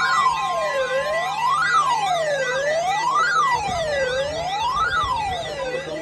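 Electronic siren wailing, its pitch sweeping up and down about once every second and a half, over a steady high tone and a low hum.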